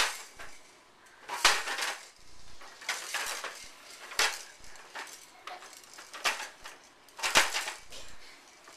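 Plastic baby push walker being shoved about and knocking into things: a run of hard plastic clatters and knocks, roughly one every second or so, the loudest right at the start and about seven seconds in.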